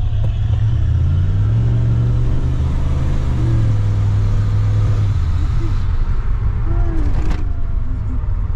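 Car driving on the road: steady low engine and road rumble. The engine note rises a little about a second and a half in and drops back near five seconds. A short knock comes about seven seconds in.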